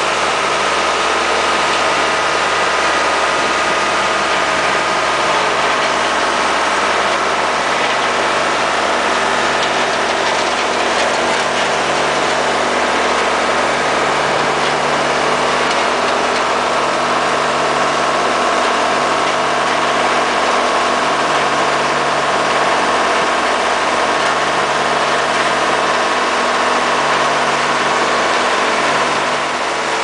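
Ingram three-drum smooth steel-wheel asphalt roller's engine running steadily as the roller travels slowly, with a low hum that swells and fades every second or two.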